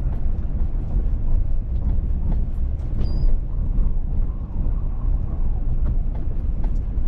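Steady low rumble of a car's engine and tyres heard from inside the cabin while driving slowly in city traffic, with a brief high squeak about three seconds in.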